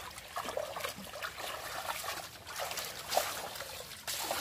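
Muddy shallow water splashing and dribbling as a woven bamboo scoop basket is swept through a ditch pool and lifted out, in a quick run of small splashes with a louder one about three seconds in.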